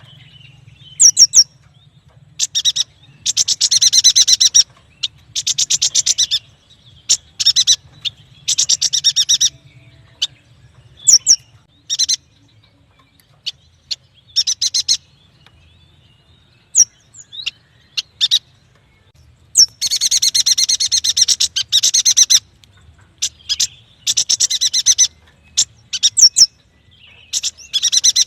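Yuhina singing: repeated bursts of fast, high-pitched chattering trills, each lasting one to two seconds, broken by single sharp chirps and short pauses.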